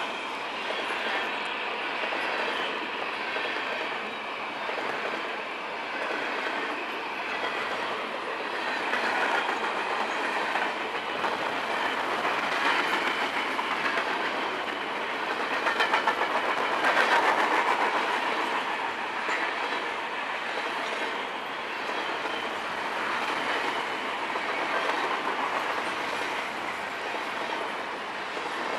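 CSX freight train's high-sided cars rolling past close by: a steady rumble of steel wheels on rail, with a clickety-clack as the wheels cross rail joints. It grows a little louder just past the middle.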